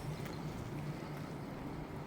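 West Midlands Railway electric multiple unit at the platform, a steady low hum with scattered light clicks and ticks.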